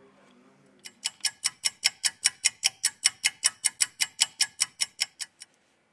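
Clock-ticking sound effect: evenly spaced sharp ticks, about four to five a second, starting about a second in and stopping shortly before the end. It stands for a timed wait while the adhesive remover works.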